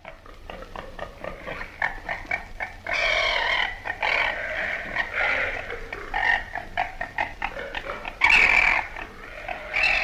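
Babirusa (Babyrousa babyrussa) grunting: a rapid run of short grunts, then several louder, longer calls, the loudest a little after eight seconds.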